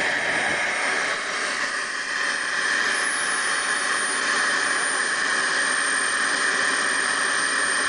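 Model jet turbine engine running: a steady rushing roar with a thin high whine that dips slightly in pitch about three seconds in.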